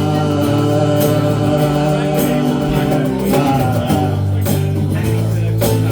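Live band music: guitar with held chords that change every second or two, and a few sharp drum hits near the end.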